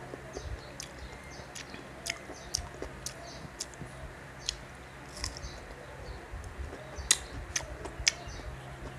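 Crisp Indian mango slices being bitten and chewed close to the microphone: irregular sharp crunching clicks, bunched at times into several a second. A faint steady low hum runs underneath.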